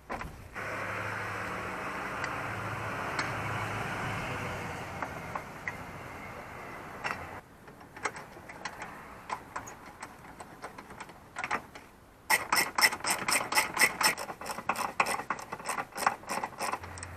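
A hand ratchet with a 10 mm socket clicking rapidly, several clicks a second, during the last five seconds as the battery hold-down nuts are run down snug. Before that comes a steady rushing noise with a low hum for about seven seconds, then scattered ticks.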